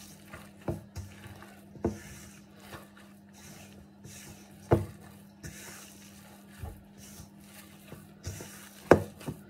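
Hands kneading poğaça dough in a stainless steel bowl: soft squashing and rubbing of dough and flour, with a few sharp knocks against the metal bowl, the loudest about five seconds in and near the end.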